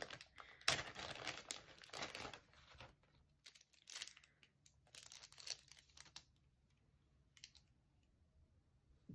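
Sunglasses being unwrapped and lifted out of their case: crinkling and rustling of the wrapping for the first three seconds or so, then a few scattered light clicks and taps. It goes almost quiet near the end.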